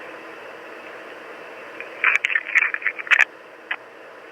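A wordless answering-machine message played back from a digital answering system: steady phone-line hiss, then about two seconds in a quick cluster of crackling clicks on the line, and one more click near the end.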